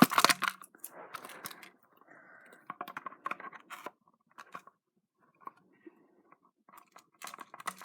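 Scissors squeezing and working at the mouse cord inside the plastic shell: irregular clicks, crunches and scraping, sparser in the middle. The wire is not cutting through.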